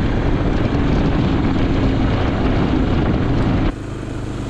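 Honda Big Red 300 quad's single-cylinder four-stroke engine running steadily under way on a road test drive, heard close from on board; the freshly rebuilt engine is running smoothly. About three and a half seconds in the sound cuts abruptly to the quad heard further off and quieter.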